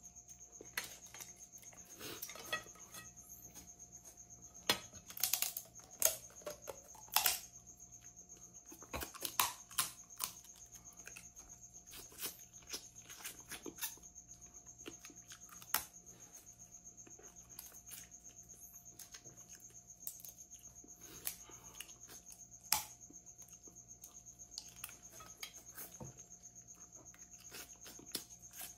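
Cooked crab shells being cracked and picked apart by hand: scattered, irregular sharp cracks and clicks, busiest in the first third. Behind them runs a steady, high-pitched insect trill.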